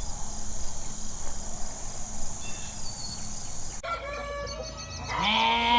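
A steady high chirring of crickets. About four seconds in it gives way to chickens clucking, and then a rooster crows in one long held call near the end.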